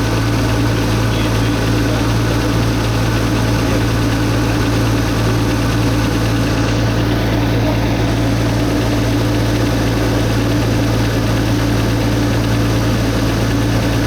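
Nissan RB25DET 2.5-litre turbocharged straight-six idling steadily. The owner says its knock, which turned out to come from the turbocharger, shows only on a cold engine and that it sounds normal now.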